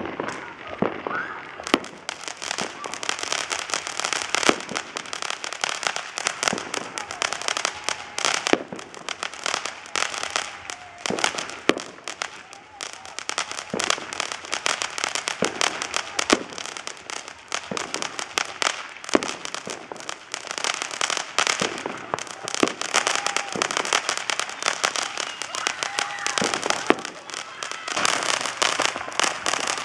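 Consumer fireworks and firecrackers going off: dense, rapid crackling and popping with louder bangs here and there. The crackling sets in about two seconds in.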